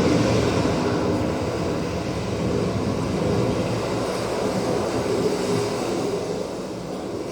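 Dolby Atmos demo soundtrack playing through the TV's sound system: a loud, dense rushing rumble with no speech, easing off near the end.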